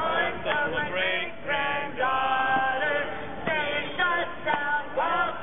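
Protest marchers singing together, with some notes held for about a second.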